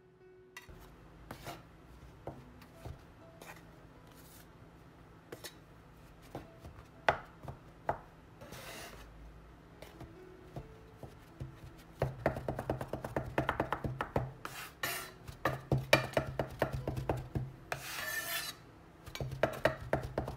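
Metal and plastic bench scrapers chopping cold butter into flour on a countertop, cutting it in for tart pastry. Scattered taps at first, then rapid chopping strokes several times a second from about halfway in, with a couple of short scraping sweeps.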